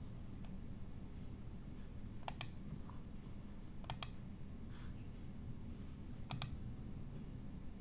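Clicks on a computer: three quick double clicks, about two seconds apart, over a low steady hum.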